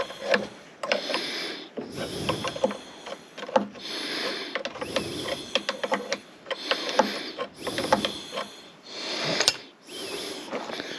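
Hand-tool work on a skid steer's hydraulic cylinder: metal parts clicking and rasping in repeated strokes, about one a second.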